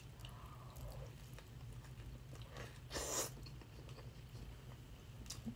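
A person chewing a soft mouthful of burrito with guacamole, with faint wet mouth clicks and one short louder hiss about three seconds in.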